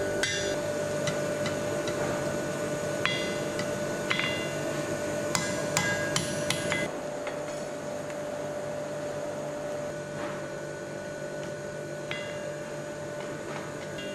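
Blacksmith's hand hammer striking red-hot iron on an anvil, irregular ringing blows for about the first seven seconds, then only a couple of faint taps. A steady hum runs underneath.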